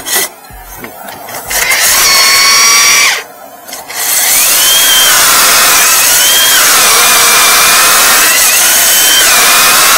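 Electric core drill with a 125 mm diamond core bit boring through a brick wall. It runs briefly about a second and a half in, stops, then runs steadily from about four seconds in, its motor whine dipping and rising as the bit bites into the wall.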